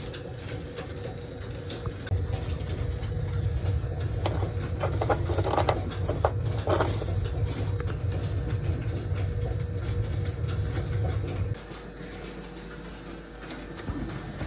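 Lapidary slab saw running with a steady low hum; the hum drops off about eleven and a half seconds in. A few light clatters and drips of coolant are heard near the middle.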